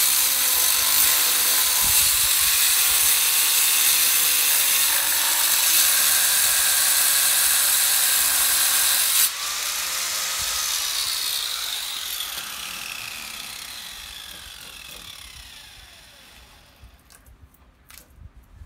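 Angle grinder cutting a stone slab, a loud steady high-pitched grinding. About nine seconds in the cutting stops abruptly and the disc winds down in a falling whine over several seconds, followed by a few light knocks as the stone is handled.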